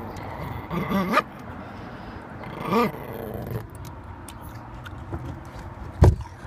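Small dog, a Chihuahua, giving two short low growls about a second in and near three seconds, each rising then falling in pitch. Near the end there is a sharp knock from the phone being handled.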